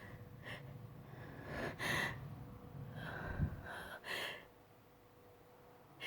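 A person with allergies takes about four short, noisy breaths between sneezes. About two-thirds of the way through, the sound drops out to silence for a second or so.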